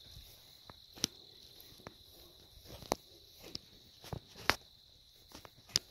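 Crickets trilling steadily in one high pitch, with a few sharp, irregular footstep crunches from someone walking over the ground, the loudest about four and a half and nearly six seconds in.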